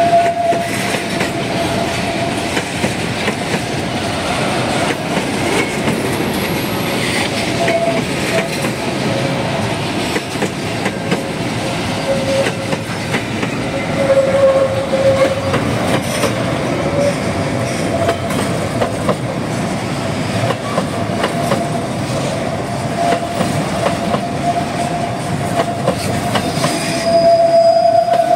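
Freight train hopper and box cars rolling past: a steady rumble of steel wheels with clacks over the rail joints, and a single high steady squeal from the wheels that fades in and out.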